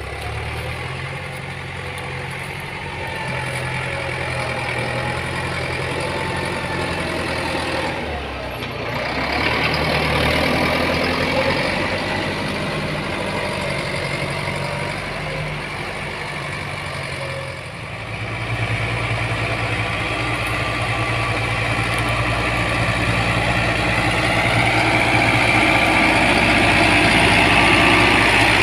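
Diesel engine of heavy road-construction machinery running steadily, its note shifting about a third and two-thirds of the way through and getting louder toward the end.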